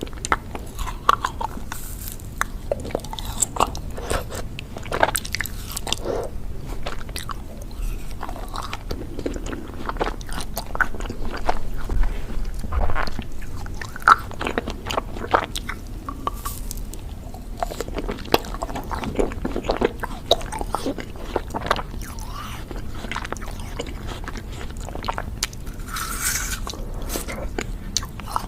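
Close-miked ASMR eating sounds of ice cream: crunchy bites and chewing, with many short, irregular crackles and mouth clicks.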